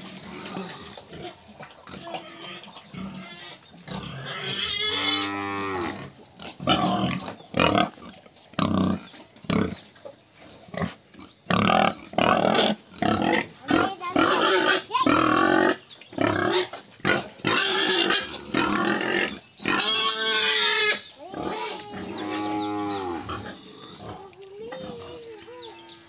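Pigs squealing and grunting again and again, with a dense run of short, loud squeals in the middle and some longer squeals that rise and fall in pitch.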